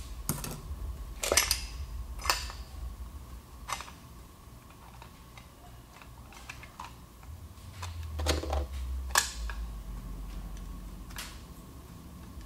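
Metal clinks and knocks from an automatic transmission's clutch drum and small parts being handled and set down on a workbench: scattered sharp knocks a second or two apart over a faint steady hum.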